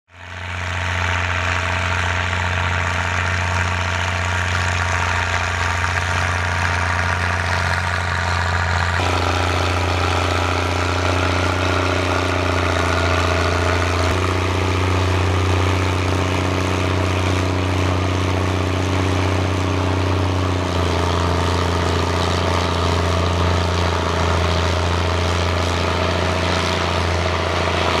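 International 1455 XL tractor's six-cylinder diesel pulling hard under load while ploughing heavy wet clay, running steadily with a deep note through its replaced, non-original exhaust. The pitch shifts slightly three times.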